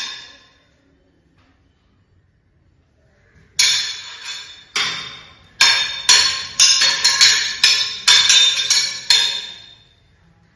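Metal struck against metal, each hit ringing on at the same few pitches. After a few seconds of quiet there are two single clashes, then a run of about a dozen, roughly three a second.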